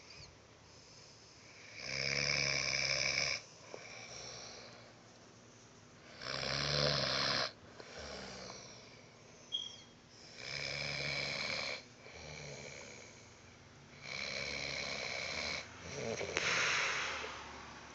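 An elderly man snoring: five loud rasping snores about three to four seconds apart, with quieter breaths between.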